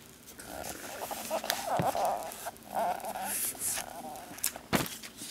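Protective plastic film being peeled off an Apple TV's casing, crinkling and crackling in uneven patches, with several sharp clicks.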